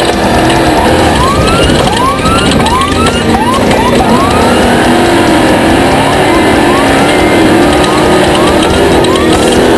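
Off-road race vehicle engine revving up again and again, in short rising pitch sweeps that follow each other quickly, over a loud steady rush of noise.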